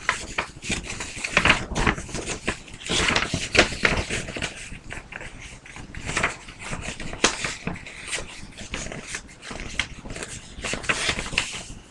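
A sheet of construction paper rustling and crinkling irregularly as it is handled and folded into a triangle.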